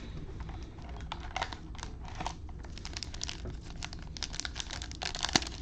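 Plastic wrapping crinkling and tearing as a box of trading cards is opened by hand: a run of quick crackles that gets busier about halfway through, with one sharper snap near the end.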